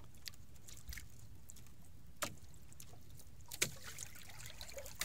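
Water lapping against the hull of a small drifting outrigger fishing boat, with two sharp clicks or knocks about two and three and a half seconds in.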